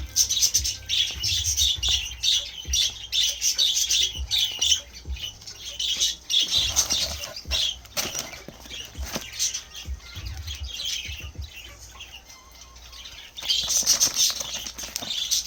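Crinkly rustling of packaging being handled, in quick runs of crackles with soft thumps. It thins out in the middle and picks up again near the end.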